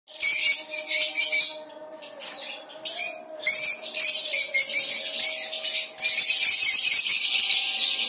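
Many caged small parrots, lovebirds and budgerigars, chattering and chirping shrilly all at once. The chatter dips briefly about two seconds in, then picks up again and becomes a continuous din.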